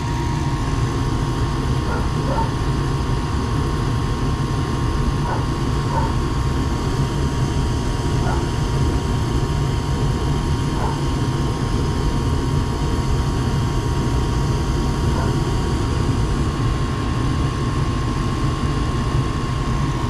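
Payne gas furnace running with its burners lit: a steady low rush of the flames and the draft inducer motor, with a thin steady whine above it.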